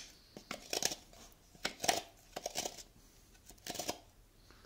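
Abrasive rubbing inside a carved wooden horn bell, smoothing rough spots on the inner wall, in several short scratchy strokes.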